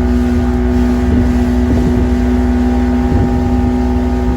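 Motorboat engine running at a steady speed, holding one even pitch, with wind rumbling on the microphone.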